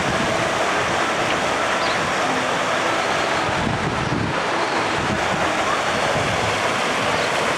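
Steady rush of running and splashing water at a hydroslide pool, with wind buffeting the microphone and faint distant voices.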